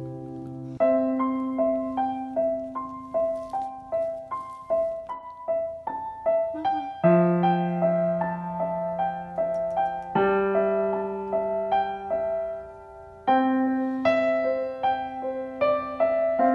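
Background piano music: a gentle melody of separate struck notes, about two a second, over low held notes that change every few seconds.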